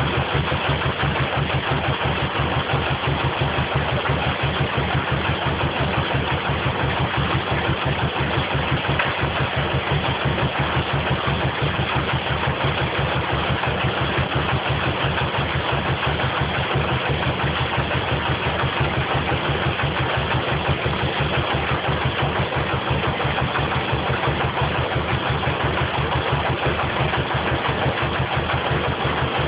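Narrowboat engine idling in a lock with a steady low throb.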